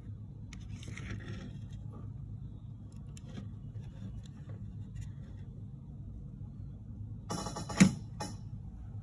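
Wires being handled and pushed into the terminal block of a plastic room-thermostat base: soft rustling and faint taps, then one sharp click a little before the end, over a steady low hum.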